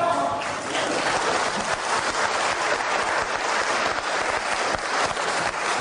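Live lecture audience applauding: a steady spatter of many hands clapping at once, building just before and holding through.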